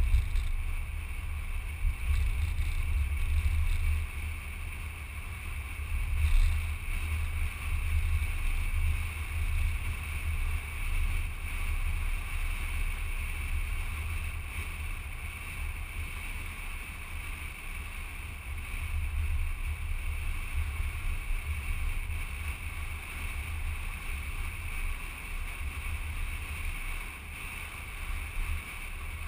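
Vehicle driving along a paved road, heard as a steady low rumble of wind and road noise with a steady hiss above it, picked up by a camera mounted on the outside of the vehicle.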